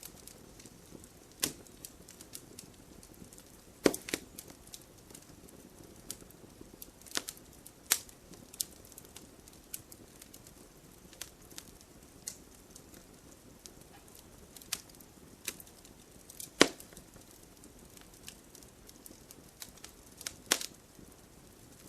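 Campfire burning with a low steady hiss and irregular sharp crackles and pops from the burning wood, two of them much louder, about four seconds in and near the end of the second quarter-minute.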